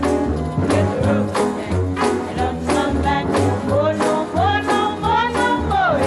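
Upbeat background music with a steady beat and a bass line; a melody line slides up and down in pitch near the end.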